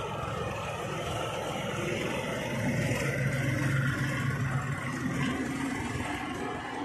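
A tractor's diesel engine running steadily under load as it hauls a loaded trolley through deep mud. The low engine hum grows louder about halfway through as the tractor comes closer.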